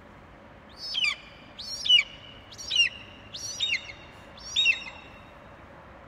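Bald eagle calling: five high, shrill notes about a second apart, each sliding downward in pitch.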